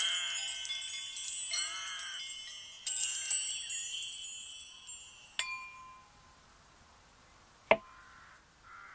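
High metallic chimes tinkling in overlapping clusters of ringing tones, dying away about five and a half seconds in. A single sharp click comes near the end.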